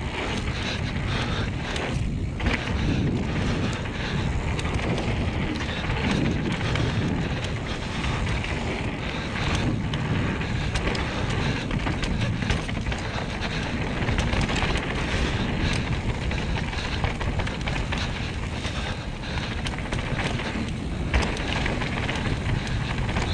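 Wind rushing over an action camera's microphone as a mountain bike rolls fast down a dirt trail, with the knobby tyres on loose dirt and many small clicks and rattles from the bike over bumps.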